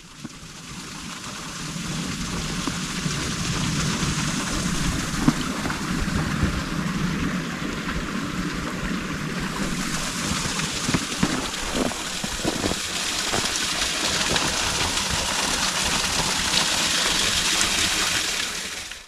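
Steady rushing of running water, a dense even hiss with a fluttering low rumble underneath. It swells in at the start and cuts off suddenly at the end.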